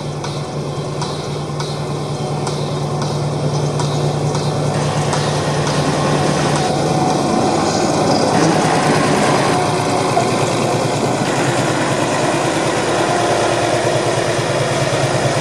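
Small narrow-gauge diesel locomotive's engine running with a steady low hum as it rolls slowly toward and past, growing louder as it comes close.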